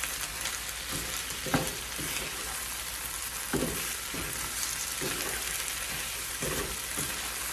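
Fried vegetable Manchurian balls sizzling in a pan of thickened sauce while they are stirred. A spoon scrapes and tosses them about once a second over a steady sizzle, as the sauce is worked into a coating on the balls.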